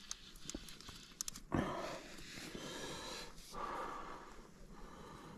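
A few light clicks from a fly reel being wound in, then two long breathy rushes of a person breathing hard through the nose, the first starting suddenly.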